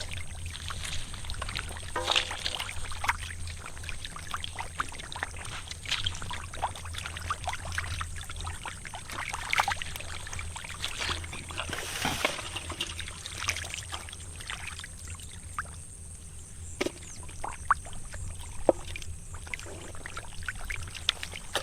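Shallow muddy water splashing and sloshing in irregular splats, over a steady low hum.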